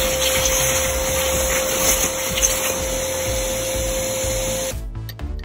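A motorized machine running steadily: a rushing noise with one constant whine, which cuts off abruptly near the end. Background music with a beat follows.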